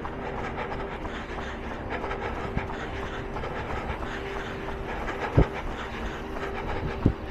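A runner's rhythmic footfalls and breathing while jogging, with two brief loud thumps, one a little past halfway and one near the end.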